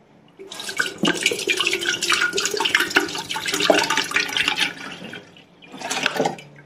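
Water poured from a plastic bottle into an empty stainless steel electric kettle, a steady splashing stream that starts about half a second in and dies away about five seconds in. A short burst of noise follows near the end.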